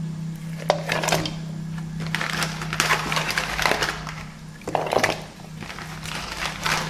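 Freshwater mussel shells knocking and scraping against one another and the aluminium pot as they go into the water, in irregular clusters of clicks with light splashing. A steady low hum runs underneath.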